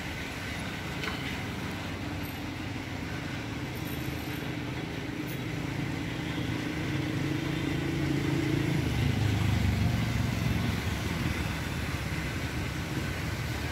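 Rain hissing steadily over wet city streets, with road traffic below. A vehicle engine's low drone swells louder about two-thirds of the way through, then eases off.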